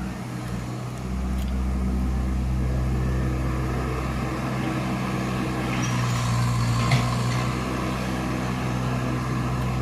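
Diesel engine of a Komatsu hydraulic excavator running steadily, picking up a little about a second in, with a short sharp click about seven seconds in.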